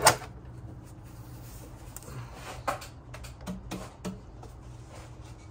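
Upper intake manifold plenum being lifted off a Toyota 4.0 V6 by hand: a sharp knock right at the start, then a few light clicks and clunks as it comes free.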